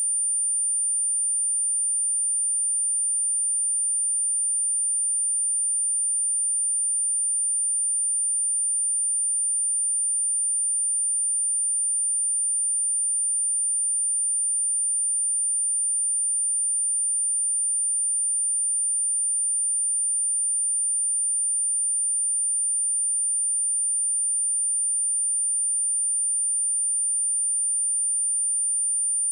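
A pure 9185 Hz sine-wave test tone, a steady high-pitched whistle at one unchanging pitch and level.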